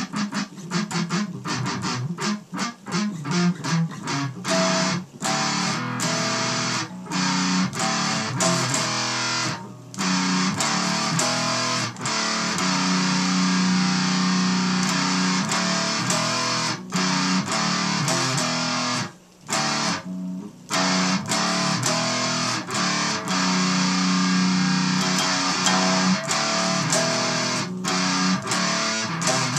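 Electric guitar played through heavy distortion: quick, choppy strummed chords for the first few seconds, then longer held chords that ring on, broken by a couple of short stops about two-thirds of the way through.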